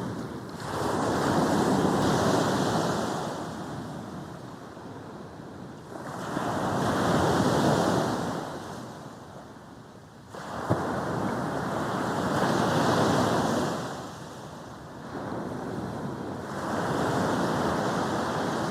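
Sea waves breaking and washing up the beach, in four surges a few seconds apart, each swelling and then fading.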